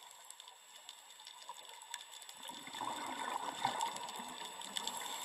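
Near silence at first, then a faint sound of running water fades in about two and a half seconds in, over a thin steady high-pitched tone.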